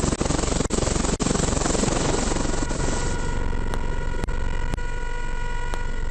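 Helicopter running: a loud rushing noise through the first half, then a steady whine of several tones from about three seconds in, with short dips about every half second.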